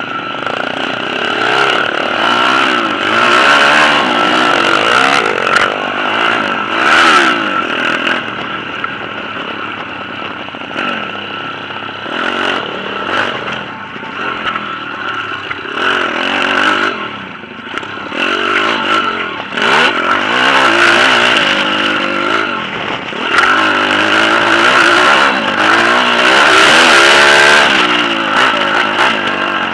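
Pit bike engine being ridden hard, its pitch rising and falling again and again as the throttle opens and closes through the corners and straights, with short knocks and rattles from the bike over the bumps.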